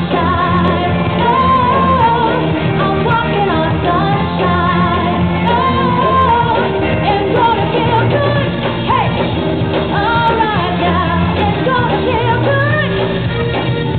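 Live band playing a pop-rock song, a singer's melody over bass, guitar and drums, the recording dull with no high end.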